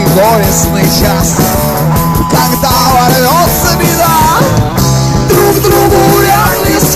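Rock band music with electric guitars, bass and drums playing a loud instrumental stretch between sung lines, its lead melody bending and wavering in pitch.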